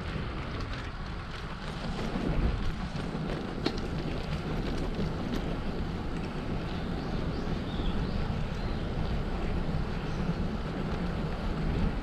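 Wind buffeting the microphone of a camera on a moving bicycle: a steady low rumble that swells in small gusts.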